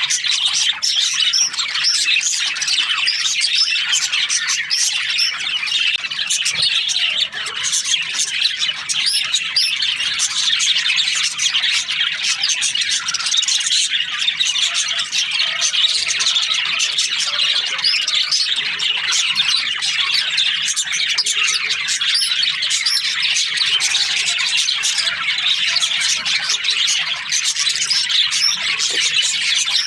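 A flock of budgerigars chirping and chattering continuously, many birds at once, with squawks mixed in: the busy warbling of breeding-season budgies.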